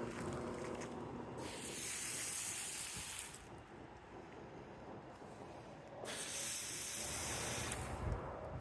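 Soft-wash spray nozzle spraying cleaning solution in two hissing bursts of about two seconds each, both starting and stopping abruptly.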